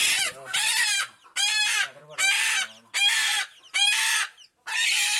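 Adult chicken calling loudly and harshly in a steady series, a half-second call about every three-quarters of a second, some seven calls in all.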